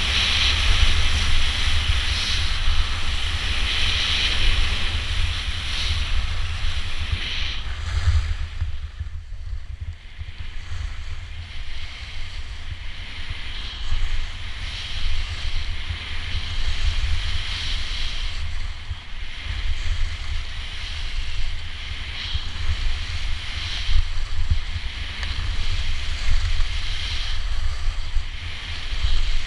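Skis hissing and scraping over snow through a series of turns, the hiss swelling and fading every few seconds. Wind rumbles on the microphone from the speed of the descent. Both ease off in a short lull about a third of the way in.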